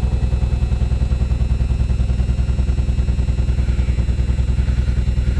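Chrysler slant-six engine running under load with a steady, fast, even pulse, as the vehicle tries to dig and claw its way through deep snow.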